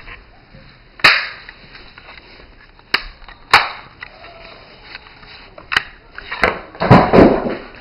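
Sharp plastic-and-metal clicks and knocks as a Daisy Powerline 880 air rifle is handled, a few spaced apart, then a louder run of clattering knocks near the end.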